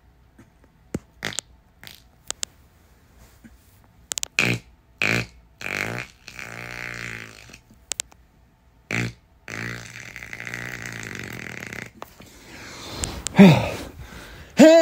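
A man passing gas over and over: a few small pops, then several short farts, a longer rippling one, a long hissing one, and a loud one falling in pitch near the end.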